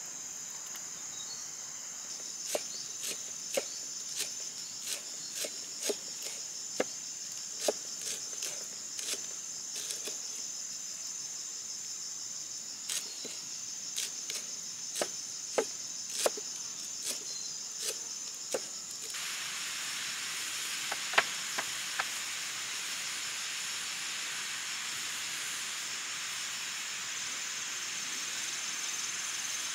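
A cleaver chopping herbs on a block of tofu on a banana leaf, sharp irregular knocks about one a second, over a steady chorus of insects. Just over halfway the knocks stop and a steady hiss takes over, with two more knocks soon after.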